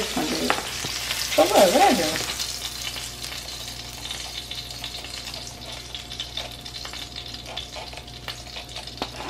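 Salmon fillets sizzling in oil in a frying pan, with light clinks and scrapes of a metal spatula as they are turned. The sizzle is loudest at first and dies down after about two seconds.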